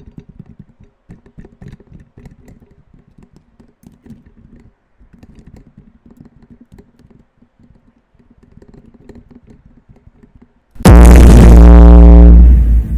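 Light, rapid tapping, like keyboard keys, for about eleven seconds. Then a sudden, extremely loud, distorted blast cuts in, falling in pitch in steps.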